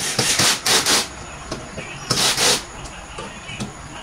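Short scraping rubs, two in quick succession in the first second and one more a little after two seconds, from the panels of a flat-pack particleboard bedside cabinet being handled and fitted during assembly.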